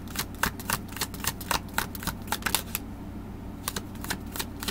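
Tarot deck being shuffled by hand: a quick run of crisp card snaps, several a second, that stops briefly a little past the middle and then starts again.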